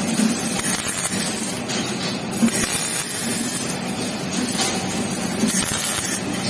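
MIG welding arc crackling and sizzling steadily, with an electrical buzz underneath and brief louder surges every second or so.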